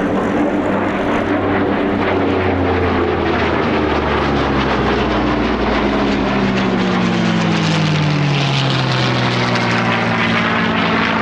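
Piston-engined propeller warbird flying past at an airshow. The engine note is loud and falls steadily in pitch as the aircraft goes by.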